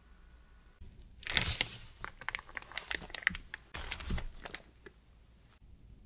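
Plastic piping bag filled with cream crinkling and crackling as a gloved hand presses and handles it. The crackles start about a second in and last roughly three and a half seconds.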